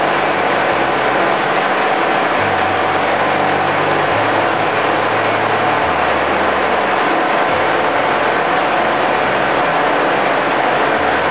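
Machinery of a tin-mining suction boat running steadily and loudly, a dense engine-and-pump noise. A low hum under it shifts pitch every second or two.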